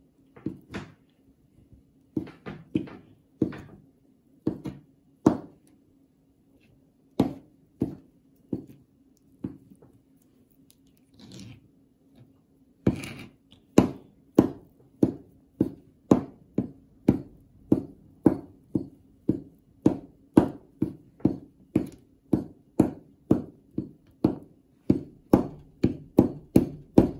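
Kitchen knife chopping hard-boiled eggs on a plastic cutting board: the blade knocks on the board, scattered slicing strokes at first, then about halfway through a fast, even chopping of two or three strokes a second.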